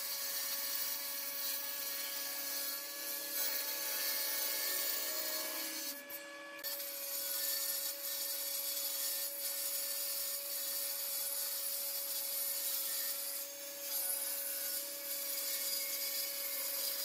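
Jointer on a combination jointer-planer running, its cutter head planing a wide board pushed along the fence. A steady machine hum sits under the hiss of the cut, with a short break about six seconds in.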